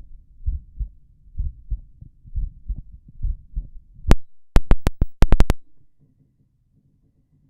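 Human heartbeat heard by auscultation with the person lying on the left side: steady low beats about once a second. Just past halfway, a quick run of sharp clicks, after which the beat stops and only a faint low hiss remains.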